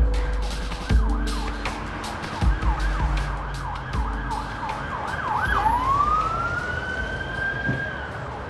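Emergency-vehicle siren on a fast yelp, quick rising-and-falling whoops two or three times a second, switching about five and a half seconds in to one long slow rising wail that holds and then fades near the end. A low traffic rumble runs beneath it.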